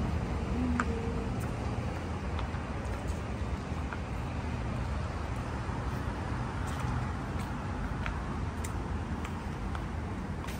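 Outdoor ambience: a steady low rumble with a few faint ticks.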